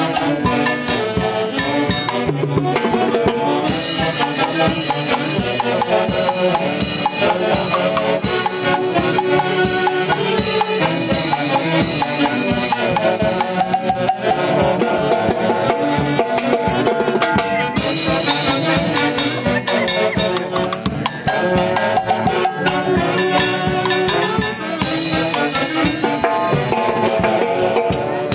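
Andean orquesta típica playing a lively festive tune: a section of saxophones carries the melody over a harp, with a percussionist keeping a steady driving beat on timbales, cowbell and cymbal.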